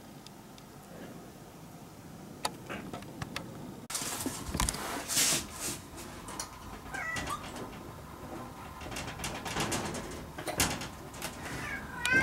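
A domestic cat giving short meows, once about seven seconds in and a few times near the end, among scattered clicks and knocks. The first few seconds are quiet room tone.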